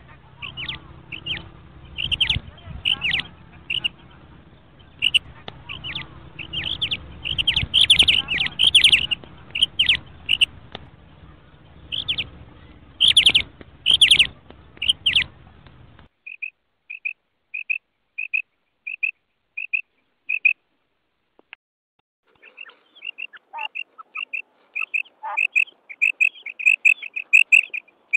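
Recorded calls of a female common quail, the short, repeated high 'kirak' call. The first part is a rapid, irregular run of calls over a background hum. About sixteen seconds in, it cuts abruptly to a cleaner recording of evenly spaced notes, about two a second, which pause briefly and then come faster and denser near the end.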